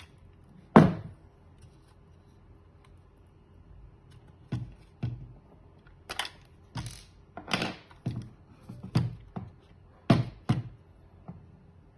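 A series of sharp, irregular knocks and clicks: one loud knock about a second in, then about a dozen quicker ones from about four seconds on.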